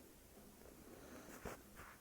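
Near silence: room tone, with a faint brief click or rustle about one and a half seconds in.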